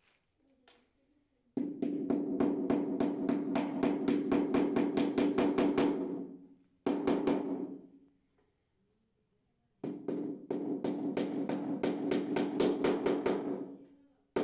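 Handheld power tool running in two long bursts of about five and four seconds, with a brief burst between them. Each burst gives rapid, even hammering knocks over a steady motor hum, typical of a hammer drill or impact driver at work.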